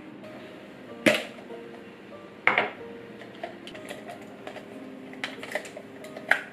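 Sharp clacks and light ticks of stationery handled on a desk: a clipboarded sketchbook set down twice, then pens knocking against a plastic pen cup as one is pulled out. Soft piano music plays underneath.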